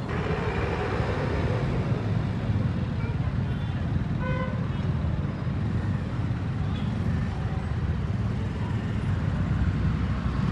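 Street traffic: a steady noise of passing vehicles, with one short horn toot about four seconds in.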